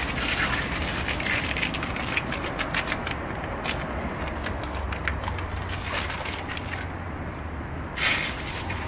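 Self-service car wash lance spraying low-pressure soapy water for the wheel-wash cycle, with crackling spatter over a steady low hum.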